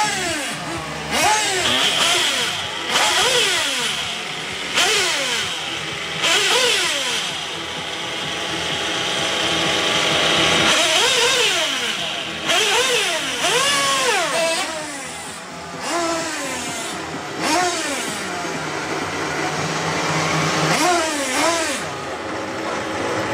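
Small nitro (glow-fuel two-stroke) engines of 1/8-scale RC buggies revving up and down over and over, each rise and fall in pitch lasting a second or two, with a steady high-pitched whine in the middle stretch.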